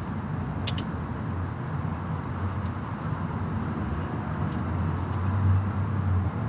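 Steady low outdoor rumble, swelling a little near the end, with a few faint light clicks over it.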